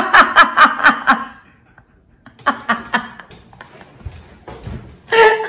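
A woman in a fit of laughter: a fast run of loud laughs that dies away about a second in, softer laughs a couple of seconds later, and a loud fresh burst of laughter near the end.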